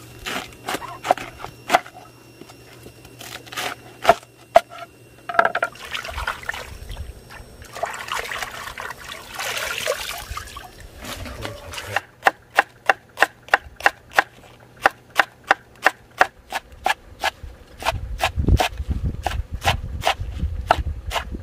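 A chef's knife cutting through a head of cabbage on a wooden board in scattered crunching cuts. Then water splashing as lettuce is rinsed in a plastic basin under a running hose. Then quick, even knife chops on a wooden cutting board, about three a second, as leafy greens are chopped.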